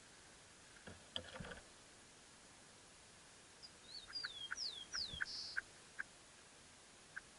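Austral thrush at its nest: a brief rustle about a second in, then a run of four or five thin, high whistles, each sliding downward, with soft clicks among them.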